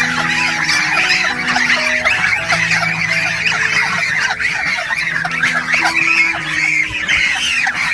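Chickens and geese calling together, many short rising-and-falling calls overlapping densely without a break.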